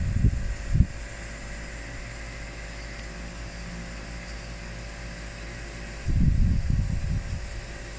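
A small electric motor hums steadily. The hum is broken by loud, low, muffled bumps in the first second and again from about six to seven and a half seconds in.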